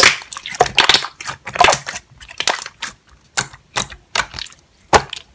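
Slime being squeezed and pressed by hand, giving an irregular run of sharp crackling clicks and pops.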